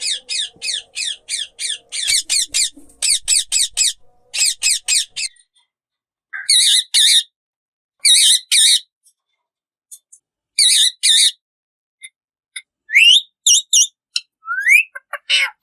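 Pet parrots calling: a fast run of sharp high calls, about five a second, for the first five seconds, then short bursts of calls separated by silent pauses, with a couple of rising whistled notes near the end.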